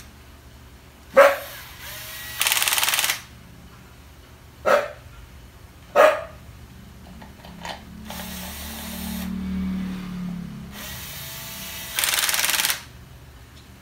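A cordless drill drives in the screws of a motorized bicycle's clutch cover. There are two short whirring runs, one about two and a half seconds in and one near the end, with a longer, slower and lower-pitched run between them and a few sharp knocks.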